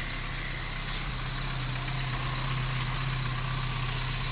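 Opel Vectra A's C18NZ four-cylinder petrol engine idling steadily with a low, even hum, running on a newly fitted used Bosch alternator.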